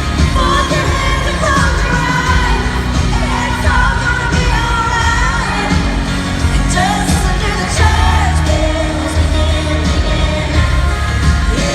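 Live country-pop concert music: a woman's lead vocal singing over a full band with heavy bass and drums, amplified through a concert sound system.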